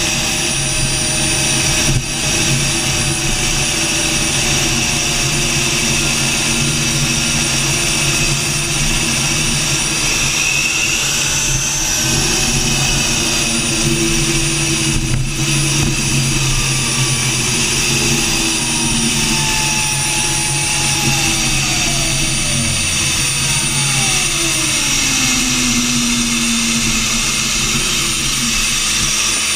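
Homebuilt gas turbine motorcycle engine running under way, a steady high-pitched turbine whine over a rushing noise. Lower tones under the whine glide down in pitch through the second half.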